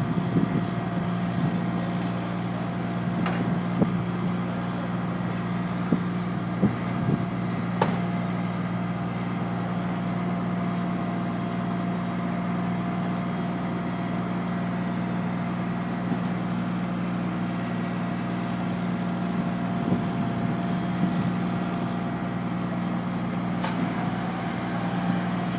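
Fire truck's diesel engine running steadily with a constant low hum, with a few short sharp knocks scattered through it.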